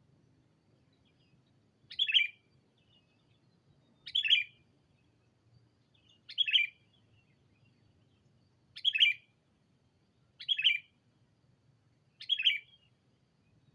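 Decoy sooty-headed bulbul (kutilang) calling to rival birds: a short call repeated six times, about every two seconds.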